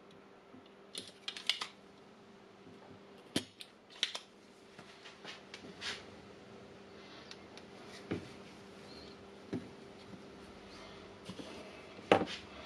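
Spring-loaded desoldering pump (solder sucker) being fired and re-cocked while desoldering joints on a circuit board. It makes a series of sharp clicks and snaps a second or more apart, over a faint steady hum.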